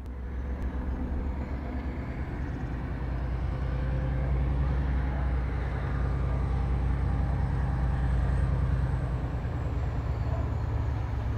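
Irish Rail 071 class diesel locomotive, its General Motors (EMD) V12 two-stroke engine giving a steady low drone as it approaches running light with no train behind it. The sound grows louder over the first few seconds, then holds.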